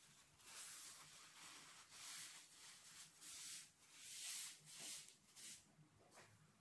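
Near silence with a string of faint, soft rubbing swishes from gloved hands and gauze working over a puppy's fur.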